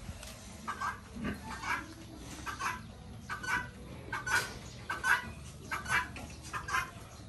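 A chicken clucking: short calls repeated at an even pace, a little under one a second.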